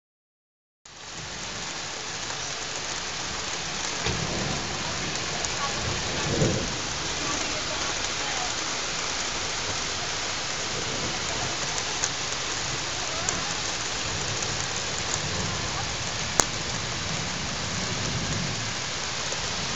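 Heavy rain falling steadily in a thunderstorm, with low thunder rumbles swelling at about four and six seconds in and again near the end. A single sharp click about three seconds before the end.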